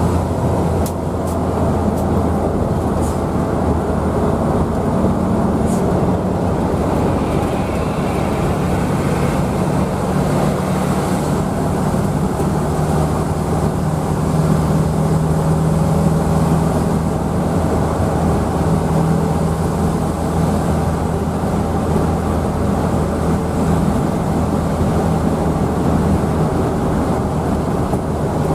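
Steady engine drone and road noise heard inside the cabin of a brand-new bus under way on its break-in run.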